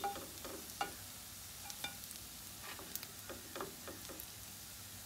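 Sabudana cutlets shallow-frying in oil in a frying pan: a soft, steady sizzle with scattered small pops and light clicks as a spatula lifts the cutlets out.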